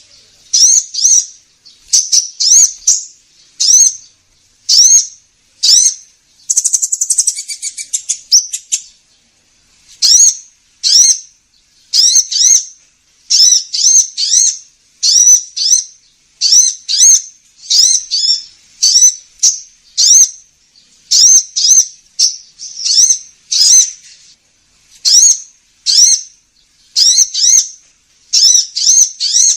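Recorded lure call of a sunbird (the 'kolibri ninja'), played on a loop: sharp, high, sweeping chirps repeated about once or twice a second, with a fast rattling trill lasting a couple of seconds, starting about six seconds in.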